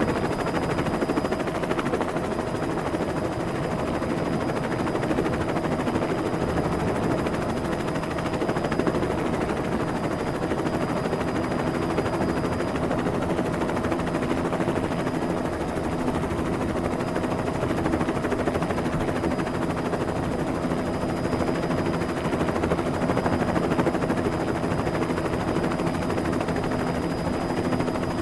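Helicopter sound effect: steady, fast rotor-blade chop with a constant engine whine underneath, held at an even level throughout.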